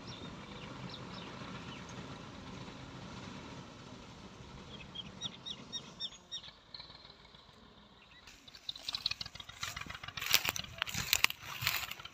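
Tractor engine running steadily as the tractor-mounted wheat reaper cuts, fading as it moves away, with a few short high chirps. About eight seconds in the sound changes abruptly to a run of loud, irregular crackles and knocks.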